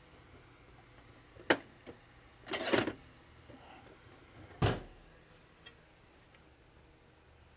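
Tools being handled on a workbench: a sharp knock, a brief clatter about a second later, then another sharp knock, with quiet between them.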